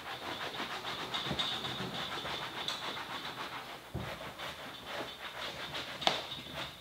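A cloth pad rubbed briskly back and forth over cleaner-soaked leather, working the cleaner into a welding hoodie's leather panels: a rapid, steady scrubbing rasp. A soft thump comes about four seconds in and a sharp tap about six seconds in.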